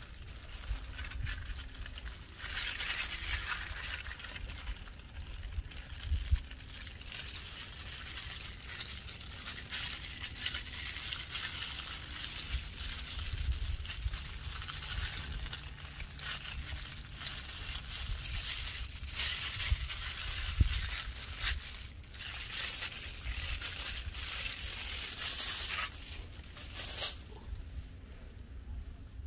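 Plastic sauce pouch crinkling as it is squeezed and torn, with broth trickling and splashing into a plastic bowl of noodles. A low rumble runs underneath.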